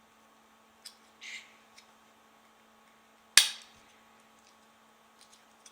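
A couple of small clicks and a brief rustle of handling, then one sharp, loud click or snap about three and a half seconds in, over a faint steady hum.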